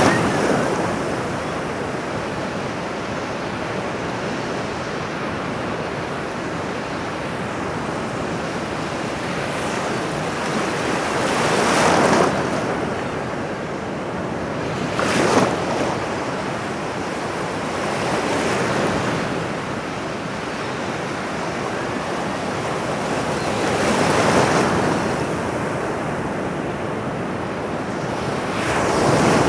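Ocean surf: a continuous wash of water, with a wave breaking louder every few seconds.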